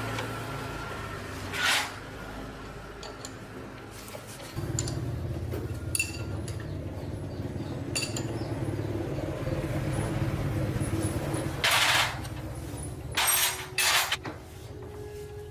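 Metal parts and tools clinking and clattering in short bursts over a steady low hum that grows louder about four and a half seconds in.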